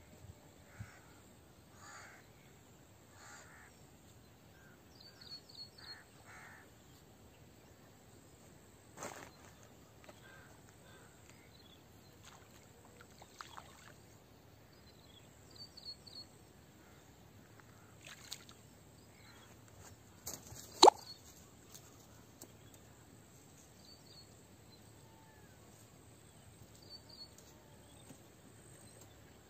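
Crows cawing now and then, with short high chirping trills from a small bird, over quiet open-air ambience. A single sharp click about two-thirds of the way through is the loudest sound.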